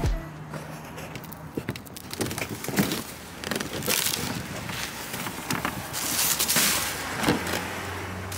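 Plastic bags of bottles and cans rustling and outdoor trash-bin lids being handled, with scattered clicks and knocks. The rustling grows louder about four seconds in and again near the end.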